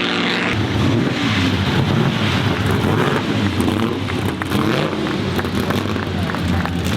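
1937 Mercedes-Benz W125's supercharged straight-eight engine running, its revs rising and falling.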